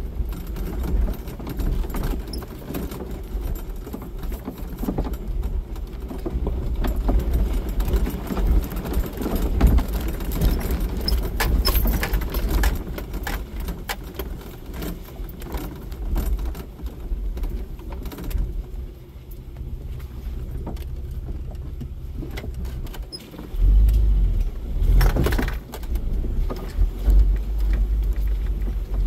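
Jeep Wrangler driving over a rough, rocky dirt trail: low engine and tyre rumble with constant clinking and rattling as the vehicle jolts over stones. The rumble grows louder about two-thirds of the way through.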